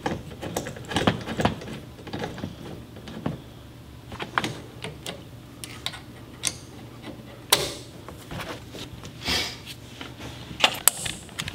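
Irregular small metallic clicks and knocks of hand-tool work on a UTV steering column: a ratchet turning the tilt-shock bolt, then parts being handled and fitted, with a few sharper knocks in the second half.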